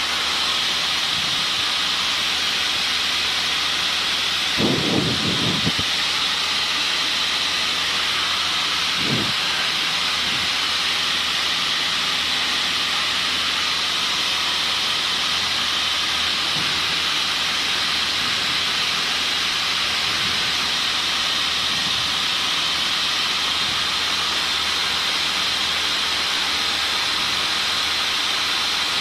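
A steady hiss in a Cessna 152's cockpit headset audio during cruise, with a faint steady engine hum beneath it. There is a short low rumble about five seconds in and a brief one about nine seconds in.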